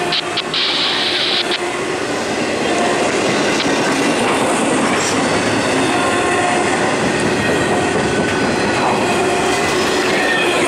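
Intermodal freight train rolling past at close range: a steady heavy rumble of wheels on rail, with brief faint wheel squeals coming and going. It gets a little louder about two and a half seconds in.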